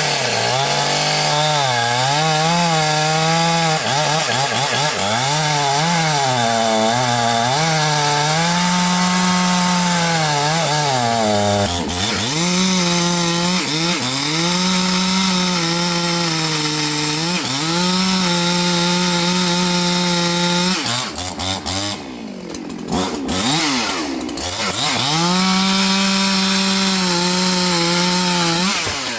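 Two-stroke chainsaw cutting wood at high revs, its pitch repeatedly sagging and recovering. About 21 seconds in it drops back briefly, then revs up again to a steady high pitch.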